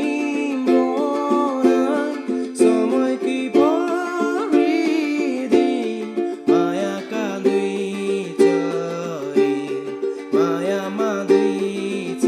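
Manaslu 26-inch tenor ukulele strummed in chords at a steady, even rhythm.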